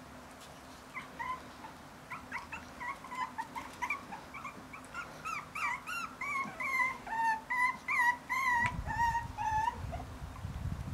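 Bolonka Zwetna puppies whimpering and squealing: a long run of short, high-pitched yelps with rising and falling pitch, about three a second, starting about a second in and stopping shortly before the end. A low rumble comes in near the end.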